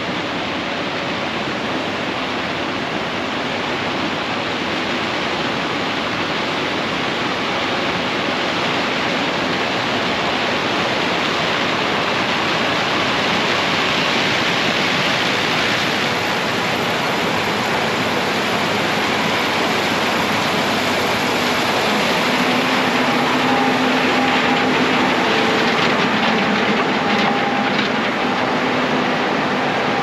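Steady rushing air noise, with the engine hum of a combine harvester and grain-cart tractor working in corn coming up over it in the last third as the machines come close.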